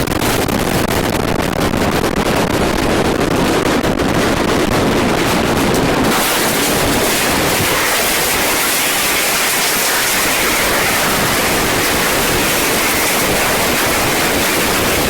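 Loud, steady rushing noise like heavy static, with no tone or rhythm; about six seconds in it turns thinner and brighter, more of a hiss.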